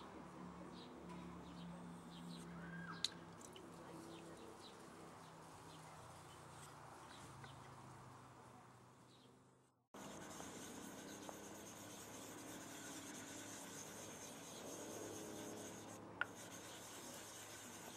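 Faint scraping of a knife blade being stroked along a wet Japanese water stone, with a few small clicks. About ten seconds in the sound fades away and cuts straight back in.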